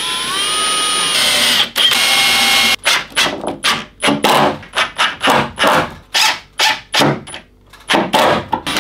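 Cordless drill running up through a steel shelf bracket into a plywood shelf: one steady run of about three seconds that rises slightly in pitch as it spins up, then a quick series of short trigger pulses, about three a second.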